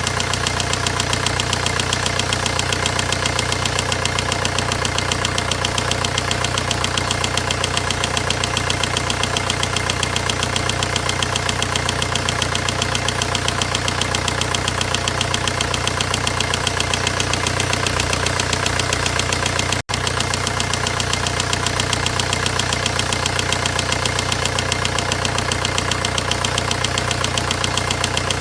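VW 1.9 diesel engine running steadily at an even speed with a fast, regular clatter: the engine noise that is the fault under examination. The sound drops out for an instant about two-thirds of the way through.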